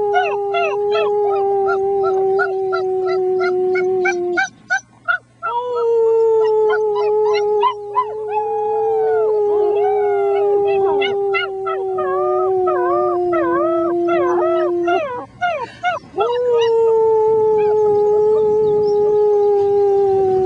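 Six-week-old German Shepherd puppies howling in wavering, high-pitched rising-and-falling cries over a person's long, low, steady howling note. The note is held for several seconds at a time, slowly sinking in pitch, and breaks off twice briefly.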